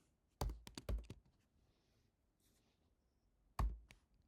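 Computer keyboard keystrokes: a quick run of several keys about half a second in, then a couple more near the end.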